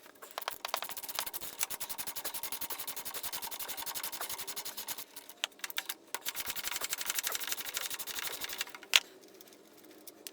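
Socket ratchet clicking rapidly and evenly in two long runs as bolts are backed out of the chassis braces, then a single sharp knock near the end.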